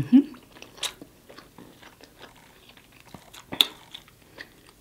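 Close-miked chewing and lip-smacking of sauced rotisserie chicken: scattered wet mouth clicks of uneven loudness, with a brief hummed 'mm' right at the start.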